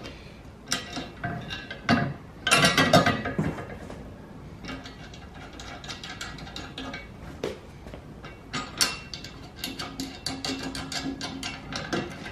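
Steel hitch bracket and bolts being handled: metal clinks and rattles as the nuts and bolts are fitted by hand. The loudest clatter comes about two to three and a half seconds in, and a run of quick small clicks follows near the end.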